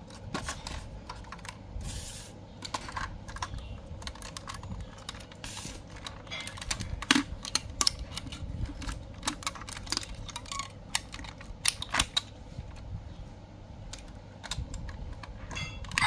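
Irregular light clicks and knocks of a 1/24 scale diecast model car being handled and turned over, with a few sharper taps among them.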